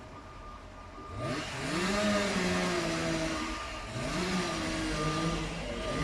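An engine revving up from low to high speed and holding there, easing off briefly and revving up again about three seconds in. A faint steady beep from a reversing alarm sounds underneath.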